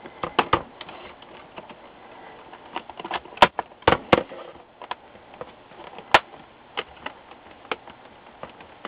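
Plastic display bezel of an HP Pavilion dv6700 laptop being snapped back onto the screen lid: a string of sharp clicks and snaps at irregular intervals as its clips catch. The loudest come around three and a half to four seconds in and again about six seconds in.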